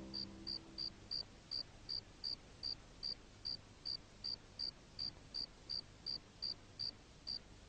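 Faint, steady chirping of a cricket, short chirps at one high pitch about three times a second, which stop just before the end.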